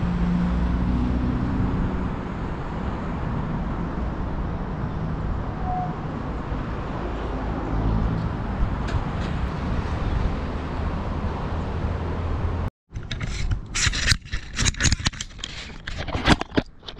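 Steady low rumble and hiss of motor traffic with an engine-like hum. It cuts off abruptly about thirteen seconds in, and a run of irregular knocks and clatter follows.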